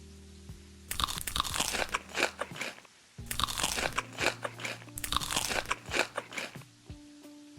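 Close-miked crunching and chewing of crisp food, mukbang-style, in two bouts of a couple of seconds each with a short pause between.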